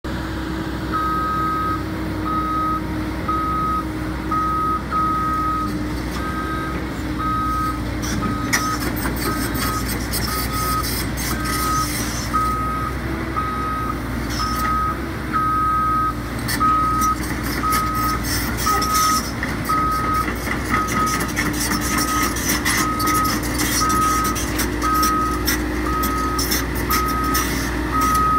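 Caterpillar 314D excavator's travel alarm beeping steadily at one pitch over the hum of its diesel engine as it moves on its tracks. Clanks and clicks join from about eight seconds in.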